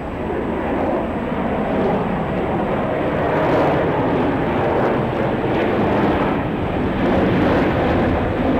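Jet airliner flying overhead: a steady rush of jet engine noise that grows a little louder over the first couple of seconds.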